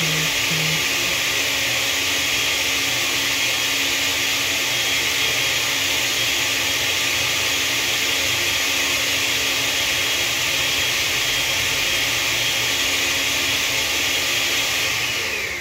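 Countertop blender running steadily, puréeing toasted guajillo and ancho chilies with water. Near the end it is switched off and the motor winds down.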